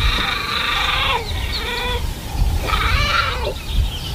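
Leopard cub calling twice with high-pitched cries, the first about a second long, the second a little shorter, over a steady low rumble.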